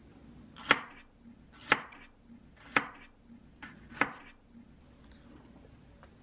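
Kitchen knife slicing a yellow bell pepper on a wooden cutting board: four crisp chops about a second apart, which stop a little past halfway.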